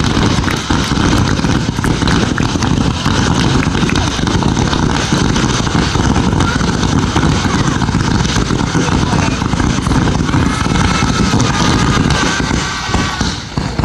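A dense fireworks barrage: rapid bangs and crackling run together into a continuous rumble, easing off slightly near the end.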